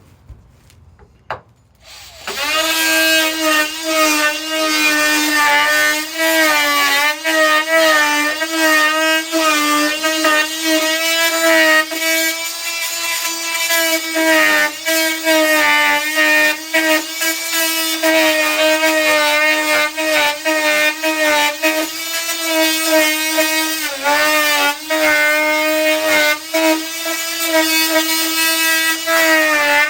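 DeWalt oscillating multi-tool with a multi-purpose blade, starting up about two seconds in and then cutting with a steady high buzz. Its pitch keeps dipping and recovering as the blade takes load.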